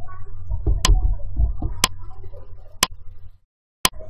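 Countdown timer ticking once a second, four sharp ticks, over a low background rumble that cuts off about three and a half seconds in.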